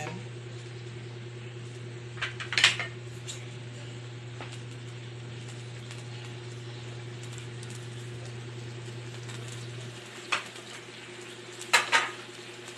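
Garlic and onions sautéing in oil in a pan, with a spatula clattering against the pan a few times; the loudest clatter comes near the end. Under it runs a steady low hum that stops about ten seconds in.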